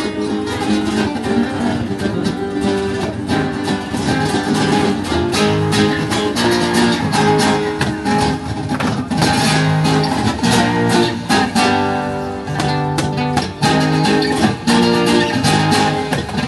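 Guitar music, strummed and plucked in a quick, steady rhythm.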